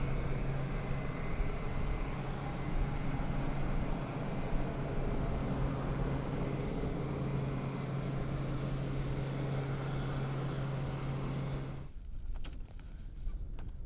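Rhein-Flugzeugbau Fanjet 600 taxiing, its turboshaft-driven ducted fan running steadily with a strong even hum over a broad rushing noise. The sound cuts off abruptly about twelve seconds in, leaving a quieter background with a few faint clicks.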